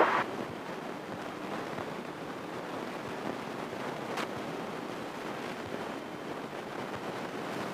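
Steady rushing cabin noise of a single-engine Grumman light airplane taxiing at low power, with a single faint click about four seconds in.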